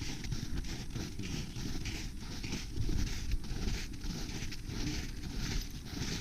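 Footsteps on the frozen lake's snow and ice, a steady walking rhythm of about two to three steps a second, over a low rumble.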